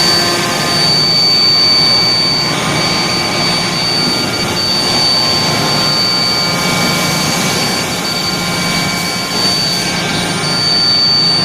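Steel plate induction hardening line running: a steady, loud machinery noise with a constant high-pitched whine over it.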